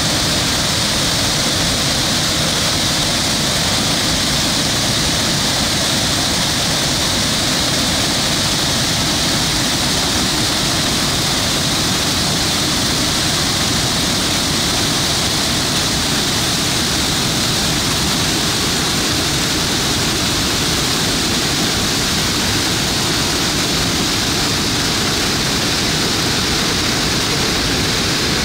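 Waterfall pouring over rocks into rapids: a loud, steady rush of falling and churning water.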